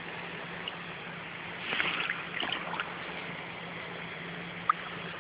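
Running stream water, with a couple of short louder sounds about two seconds in and a single sharp click near the end.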